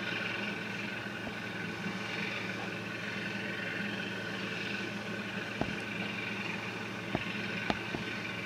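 Steady drone of a shirasu fishing boat's engine running at speed, heard from shore along with the wash of its bow wave. A few sharp clicks come in the second half.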